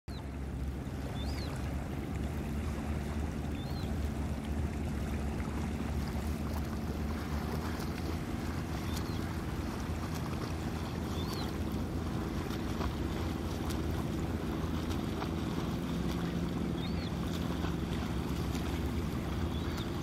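Steady low rumble of shoreline ambience, with a faint hum that swells twice and a few brief high chirps scattered through it.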